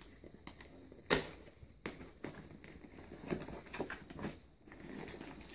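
Cardboard shipping box and its packing being handled: scattered light taps and knocks, with one sharper knock about a second in.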